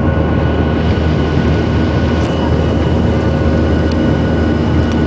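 Steady engine and airflow noise inside a jet airliner's cabin, with a few thin, steady whining tones running through it.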